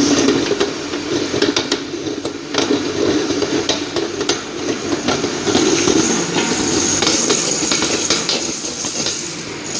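Stainless-steel colloid mill running steadily while grinding dates, with many sharp metallic clicks and taps over the motor.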